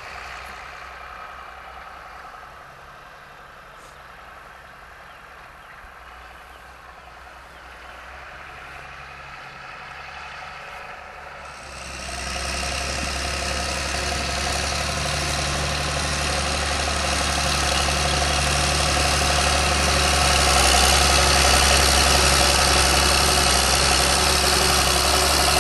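Ford 8340 tractor's diesel engine running steadily, fairly quiet at first; about halfway through it gets suddenly louder and keeps building.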